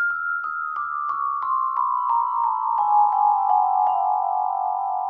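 Vibraphone played as a descending run of about a dozen mallet strokes, roughly three a second, each note lower than the last. The notes ring on and blend into one another, and the final notes are left sustaining near the end.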